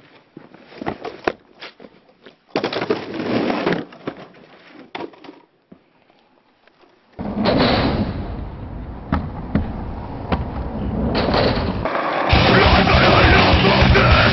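Skateboard clatter on pavement: scattered clacks and a second-long rush of wheels rolling a few seconds in. About seven seconds in, loud heavy rock music starts suddenly and grows louder near the end.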